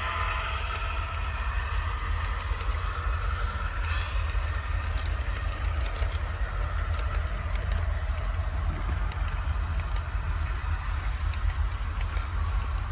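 Model train running on the layout: a steady low rumble with faint light clicks.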